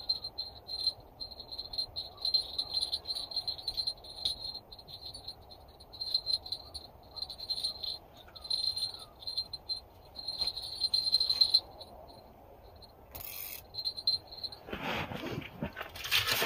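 Fishing reel's clicker ratcheting in rapid runs with short pauses as a pike pulls line from the rod. Near the end comes a scuffle of handling noise.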